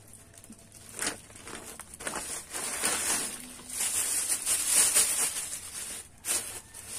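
Rustling and crinkling of a new cotton t-shirt being handled and lowered, with a few quick swishes and the busiest handling in the middle.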